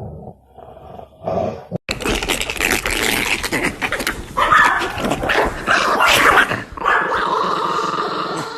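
A dog growling and barking. About two seconds in, the sound changes abruptly to a louder, noisier stretch.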